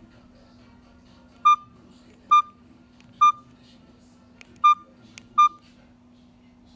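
Alcatel OT-2008G mobile phone giving five short electronic beeps, all at the same pitch and spaced unevenly about a second apart, over a faint steady hum.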